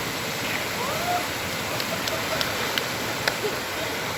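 Mountain stream rushing steadily as a continuous wash of water noise. A faint voice call comes about a second in, and several short sharp ticks fall in the second half.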